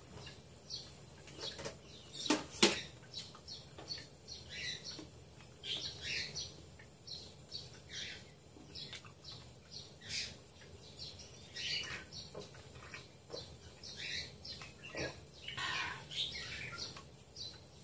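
Small birds chirping over and over in short, quick calls, with two sharp clicks about two and a half seconds in.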